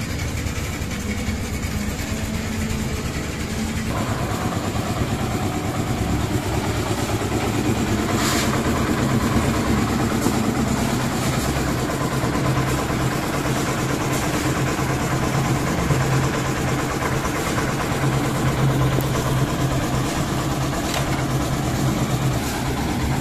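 A concrete mixer's engine running steadily during slab casting. The sound grows fuller and noisier about four seconds in.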